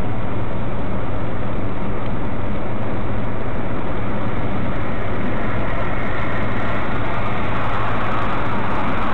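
Loud, steady vehicle noise: a low engine hum under a dense rush of road noise, dull and muffled, with no change in pitch or level.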